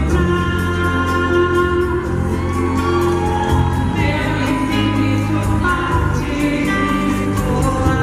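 Live band music with singing, amplified in a concert hall and heard from the audience. Sustained chords and bass run under a steady, light percussion beat.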